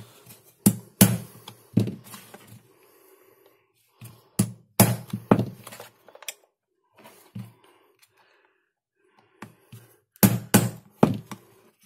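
Small hammer tapping a knife blade wedged into the glued seam of a laptop power adapter's plastic case, to crack the seam open: sharp knocks in irregular groups, with a quick run of them near the end.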